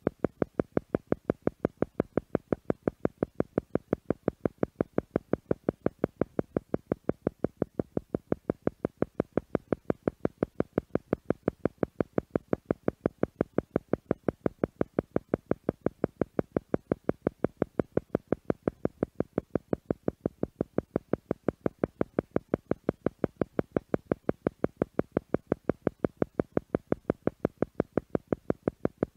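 Synthesized theta meditation tone pulsing on and off evenly a few times a second, in the manner of an isochronic tone. It is steady and unchanging throughout.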